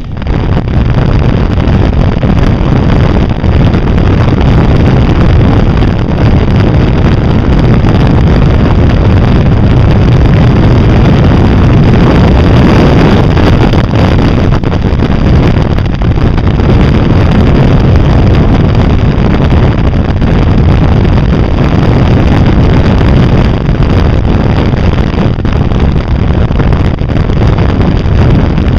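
Wind rushing over an exposed camera microphone, mixed with the engine and road noise of a Can-Am being ridden steadily at road speed. The sound is loud and unbroken.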